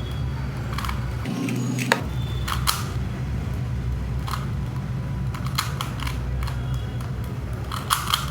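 Plastic clicks and clacks of a Rubik's cube's layers being twisted, irregular, while the first layer is solved, over a steady low hum.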